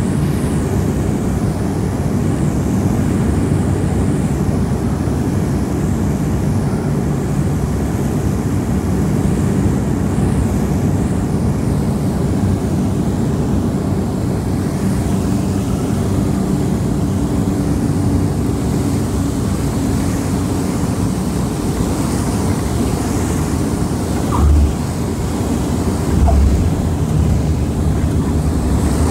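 Propeller airliner's engines droning steadily, heard from inside the cabin, with two brief low thumps near the end.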